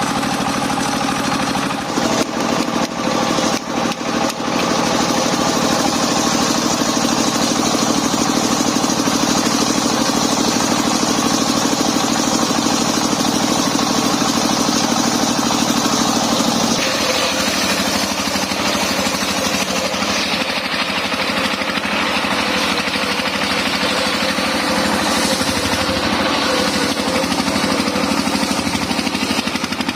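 Engine-driven portable circular sawmill running steadily, with a steady high hiss of the blade cutting wood. A few sharp knocks come in the first few seconds, and the engine's tone shifts about halfway through.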